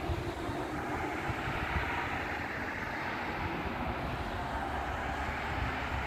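Jet aircraft engines running, a steady rushing noise that swells slightly in the middle, with wind buffeting the microphone.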